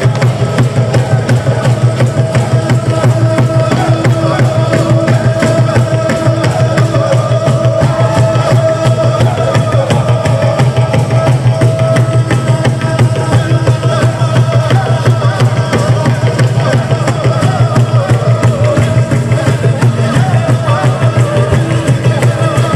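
Loud live music: fast, steady drumming with a long held tone sounding above it.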